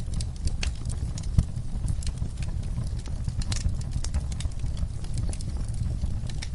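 Wood fire crackling: irregular sharp pops and snaps over a low steady rumble, with one louder pop about a second and a half in.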